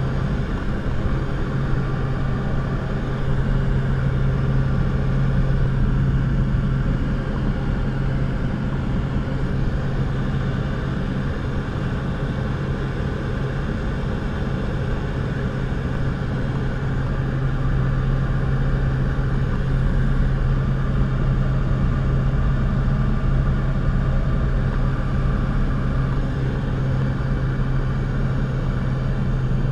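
Steady drone of a small jump aircraft's engine and propeller, heard from inside the cabin, with a constant low hum over a rumble.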